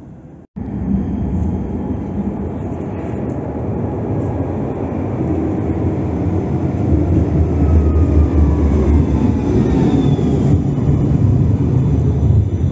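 Tram arriving at an underground stop and rolling past close by: a loud low rumble of wheels on rails that builds as it nears, with faint high whines falling in pitch in the second half.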